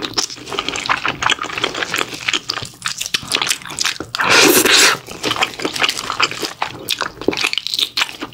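Close-miked eating: chewing and biting with wet mouth smacks and clicks, and one louder, crunchier bite about four and a half seconds in.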